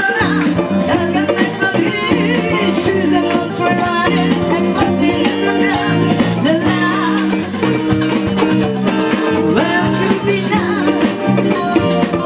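Live band playing an uptempo rock song: a woman singing lead over electric guitar, bass, piano and drum kit, with a steady beat.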